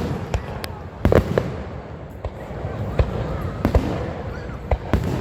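Fireworks going off: a string of sharp bangs and pops, about a dozen in five seconds, some louder and nearer than others, over a steady low rumble.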